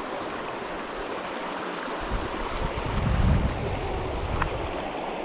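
Shallow river rushing steadily over rocks and small rapids, with a low rumble about two seconds in that lasts a second or so.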